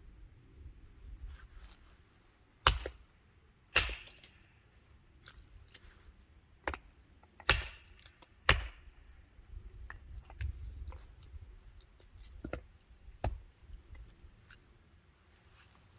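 A series of sharp knocks and cracks at uneven intervals, four of them much louder than the fainter ticks in between.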